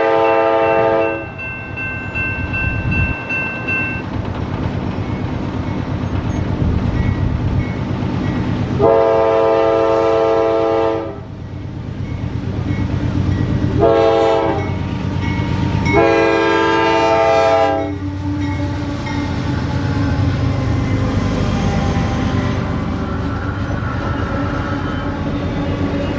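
Freight train's lead diesel locomotive sounding its air horn in the grade-crossing pattern: the end of one long blast, then long, short, long, over the rumble of the approaching locomotives. After the last blast, the steady rumble and clatter of the train passing.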